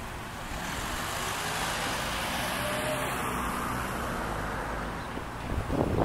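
A car passing on a nearby road: tyre and engine noise swells over a couple of seconds, holds, and fades away.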